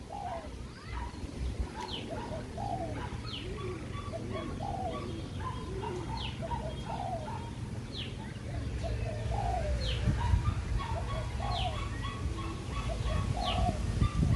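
Spotted dove cooing over and over, a steady run of low coo phrases about one a second.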